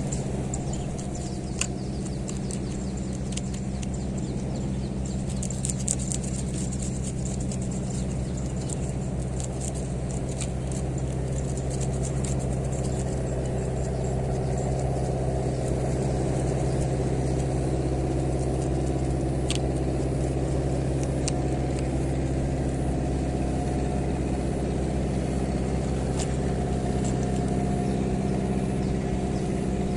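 An engine running steadily, with a few sharp clicks and ticks over it in the first half.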